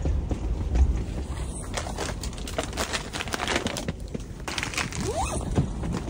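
Nylon tent fabric and clothing rustling and crinkling, with scattered light clicks and knocks, as someone moves about inside a small pop-up ice-fishing tent. Underneath runs a low rumble of strong wind, with a brief rising scrape about five seconds in.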